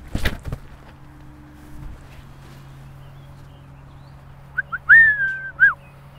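Disc golf drive: a short, sharp whoosh-snap as the disc is released right at the start. About five seconds in comes a loud whistled call of a few notes: two short chirps, a long held note that slides down, and a last note that drops.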